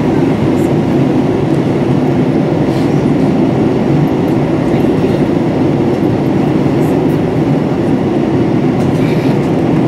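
Steady, loud cabin noise of an Airbus A321 in flight: a low, even rumble of the jet engines and rushing air, heard from a seat over the wing while descending.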